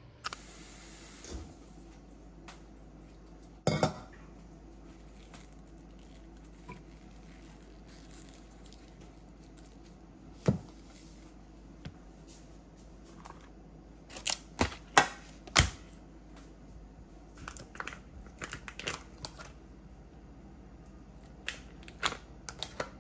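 Scattered knocks and clicks of objects being set down and handled, with clusters of quick clatter in the middle and near the end, over a steady low hum.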